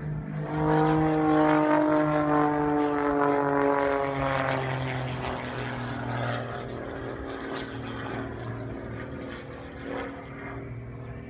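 Propeller engine of a single-engine aerobatic plane droning overhead. Its pitch falls slowly over the first few seconds and it grows fainter.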